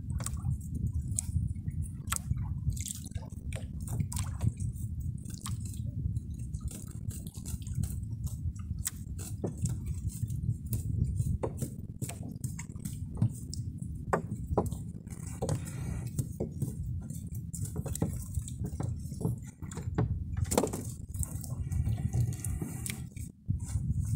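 Water sloshing and dripping around a small wooden boat, with irregular light clicks and drips as wet fishing line and gear are handled.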